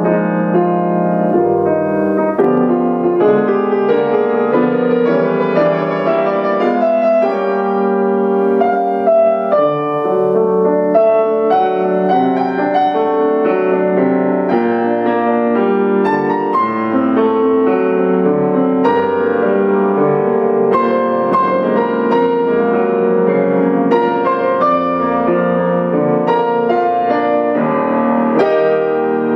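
Solo grand piano played continuously, a dense flowing passage of many notes at a steady loudness.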